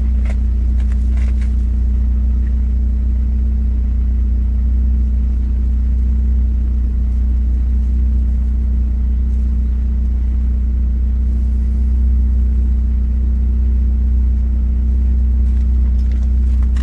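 Mazda MX-5's four-cylinder engine idling steadily, a constant low hum that neither rises nor falls, heard from inside the cabin.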